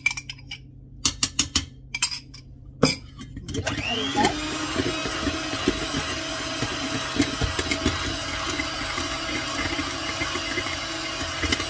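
A few sharp clicks of a spoon scraping and tapping out a yogurt cup, then about three and a half seconds in an electric hand mixer switches on, its motor rising briefly in pitch, and runs steadily as its beaters whisk pancake batter in a metal bowl.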